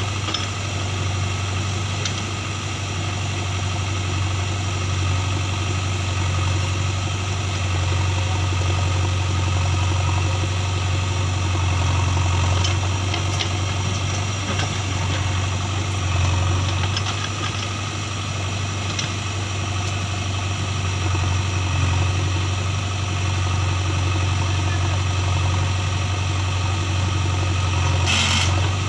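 Diesel engines of a JCB 3DX backhoe loader and a tractor running steadily while the backhoe works its arm to load mud, with the level swelling and easing a little. There is a brief clatter near the end.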